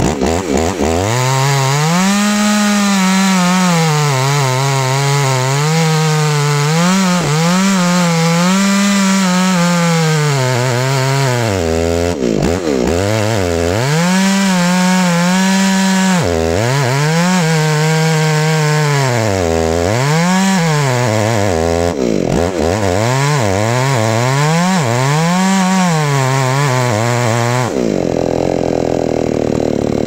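Portable sawmill's small engine running hard as it saws wood, its pitch wavering up and down under the load and dipping sharply a few times. Near the end it drops back to a lower, rougher running sound.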